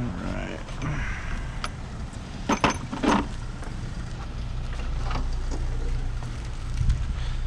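Scattered clicks and clunks of hands and tools working at the engine cover in the engine bay, with two loud sharp knocks about two and a half and three seconds in, over a steady low hum.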